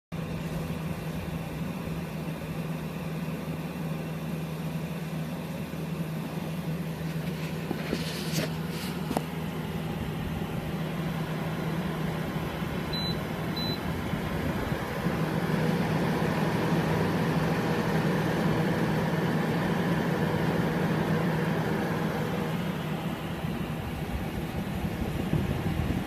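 Gree 10,000 BTU window air conditioner running: a steady rush of fan air over a low, even hum. About thirteen seconds in there are two short high beeps from its control panel as the temperature is set down, and from about halfway on the running sound grows louder.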